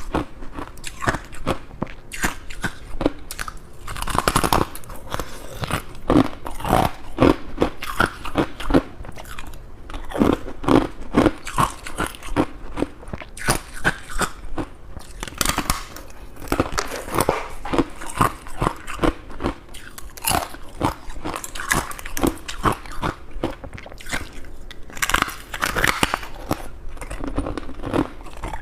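A person biting and chewing crunchy freezer frost, a steady run of irregular crunches.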